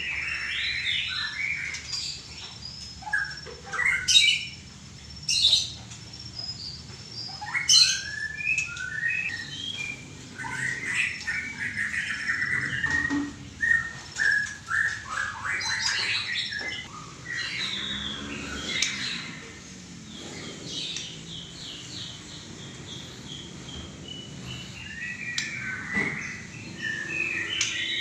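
White-rumped shama (murai batu) singing a long, varied song of rapid whistled phrases and sharp chipping notes, with the loudest notes a few seconds in.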